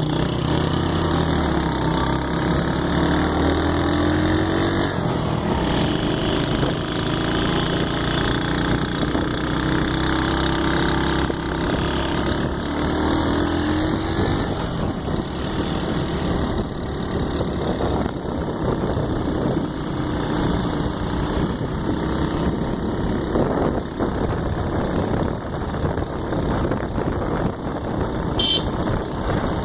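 Vehicle engine running steadily. Its pitch rises twice as it revs, and there is a brief sharp click near the end.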